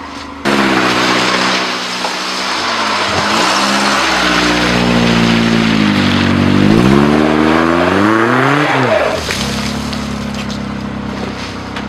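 Subaru Forester's flat-four engine revving hard under load as the car crawls up a steep, loose rocky trail, over a loud hiss of tyres on rock. The revs dip and climb several times, drop sharply about nine seconds in, and then settle to a lower, steadier note.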